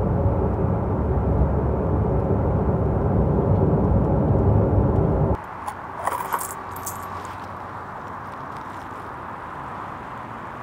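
Porsche 911 Carrera on the move, heard from inside the cabin: a steady drone of engine and tyre noise. About five seconds in it cuts off to a much quieter outdoor hush, with a few light rustles and clicks.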